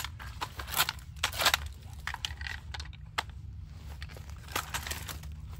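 Dry twigs and branches crackling and snapping as a brush pile is handled, with a few sharp cracks in the first second and a half, over a steady low rumble.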